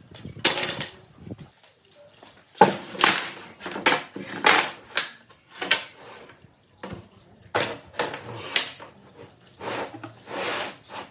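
Wood being worked and handled by hand: a series of irregular scraping strokes, each under a second, mixed with light knocks of wooden pieces.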